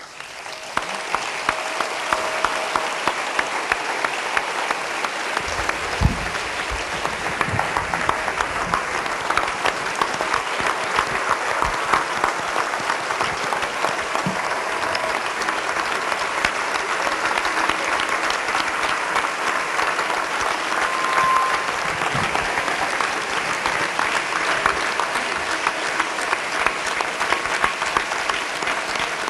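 Audience clapping in a long, steady round of applause that swells within the first second and keeps up throughout.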